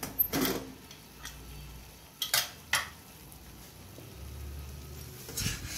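Stainless-steel pressure cooker being opened once it has cooled: four sharp metal clinks and knocks from the lid and handle, the first with a short ring.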